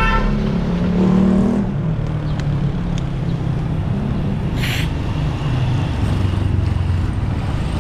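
Small motor vehicle engines running in street traffic, a low steady hum that shifts pitch a couple of times, with a short hiss about four and a half seconds in. A motorcycle-sidecar tricycle's engine grows a little louder near the end as it passes close.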